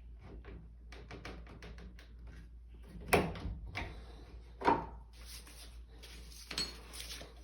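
Hand-tool work on the edge of a wooden door for a latch backset: a run of light, quick clicks and taps, then two sharper knocks and a smaller one near the end.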